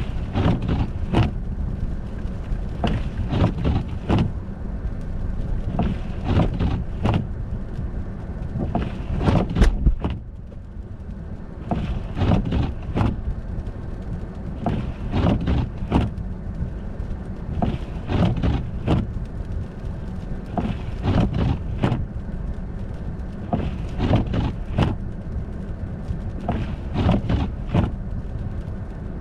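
Car driving on an icy, snowy road: a steady low rumble of engine and tyres, with frequent short knocks and crunches coming in irregular clusters. The rumble and knocks ease briefly about ten seconds in.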